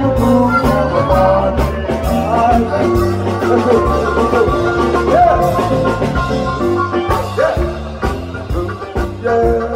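Live band playing in a room: a man singing into a microphone over keyboard, electric guitar and drums, with sliding sung notes.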